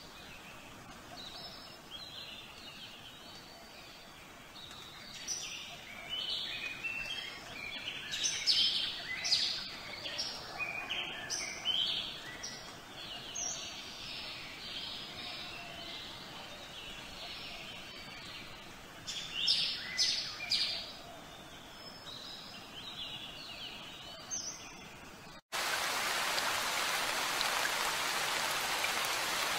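Birds chirping and singing in a busy chorus of short high calls, densest in the first half. Near the end the birdsong cuts off abruptly and a steady hiss of falling rain takes over.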